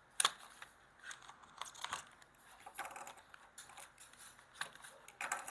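A Hot Wheels Premium die-cast car's packaging being opened by hand: scattered clicks, crinkles and scrapes of plastic and card, with a sharp click just after the start.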